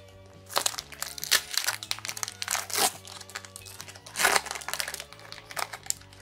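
Foil Pokémon booster pack crinkling as it is torn open and peeled apart by hand, in irregular crackly bursts, over soft background music.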